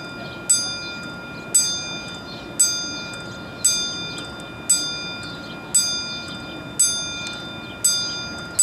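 Tram crossing signal bell ringing steadily, one ding about every second, each ringing out before the next.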